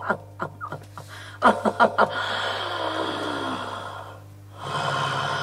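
A person breathing hard into a close microphone: two runs of quick, panting breaths, then a long breath lasting about two seconds, a short pause, and another long breath starting near the end.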